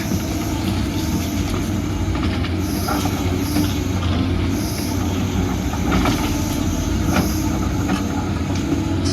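Doosan DX250 hydraulic excavator working: a steady diesel engine drone with a low hum, with faint high squeals in the middle and two sharp metallic knocks about six and seven seconds in.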